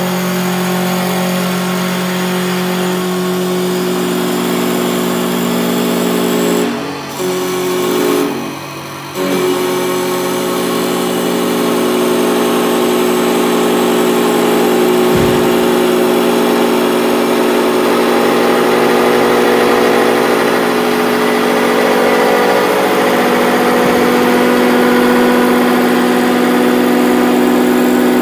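Camel CNC wood lathe turning a wooden spindle blank, running with a steady whine of several held pitches while its cutter shaves the wood. The sound dips briefly twice, about 7 and 9 seconds in.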